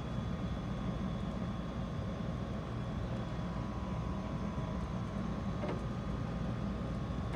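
Wind rumbling on the microphone, with a faint steady hum underneath and one light click about three quarters of the way through.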